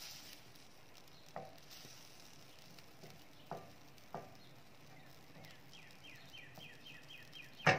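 Wooden spatula stirring a milky masala sauce in a stainless-steel skillet over the heat, with a faint sizzle and a few soft knocks of the spatula against the pan. A loud clatter of the utensil on the pan comes right at the end.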